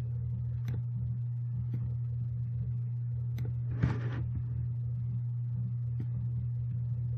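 Steady low electrical hum on the recording microphone, with a few sharp clicks of a computer mouse spread through, and a short burst of noise just before the middle.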